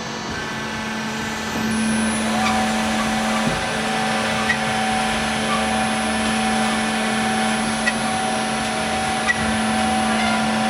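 Metallkraft BMBS 290x290 CNC-DG-F automatic metal bandsaw running with a steady machine hum. A second, higher steady tone joins about two seconds in and stops at the very end. A few short sharp clicks sound along the way.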